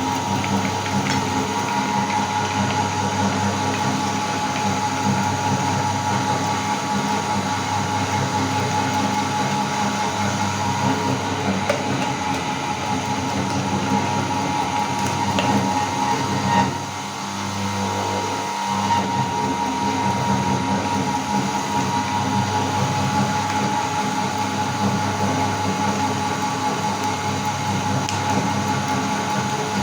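Electric meat grinder running steadily as it grinds chocolate bars, its motor giving a steady whine over a low hum. It dips briefly about seventeen seconds in, then runs on as before.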